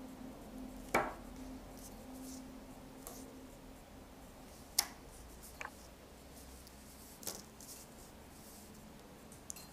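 Handling noise: a few sharp light knocks and clicks as a NeoPixel LED ring and sheets of paper are picked up and set down on a table. The loudest knock comes about a second in.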